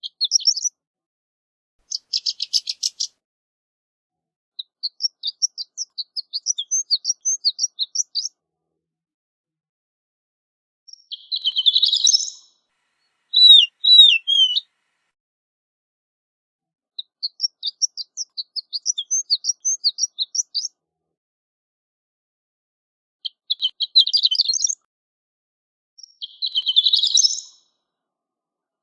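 Horned lark singing: short, high tinkling twittering phrases separated by pauses of a second or more, with a few buzzier bursts and a couple of loud slurred notes about halfway through.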